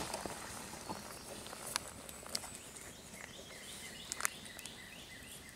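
Birds chirping in the woods, with a few sharp clicks and taps from a metal camp pot being handled.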